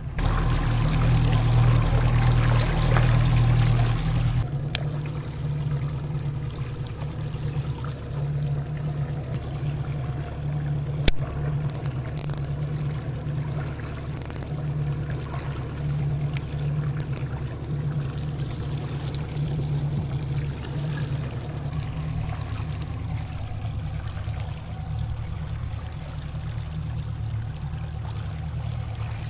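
A 60 hp outboard motor running slowly, a steady low hum, under water rushing and splashing along the boat's hull. The water rush is loudest for the first four seconds or so, and a single sharp knock comes about eleven seconds in.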